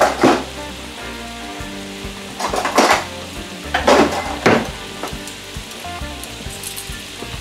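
Orange roughy fillet sizzling in a stainless steel frying pan of lemon, white wine and sour cream liquid over medium-high heat. A steady sizzle rises in louder bursts about three times.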